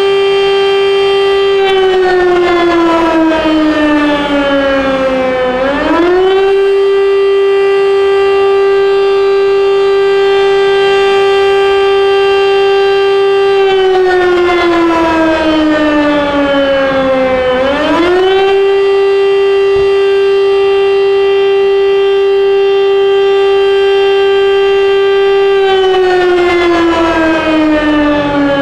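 Rooftop multi-horn alert siren sounding the modulated French national alert signal. It holds a steady tone for about eight seconds, slides down in pitch over about four seconds, then swoops quickly back up, repeating about every twelve seconds. This rising and falling wail is the signal to shelter at once in a closed room, used for an industrial or nuclear accident.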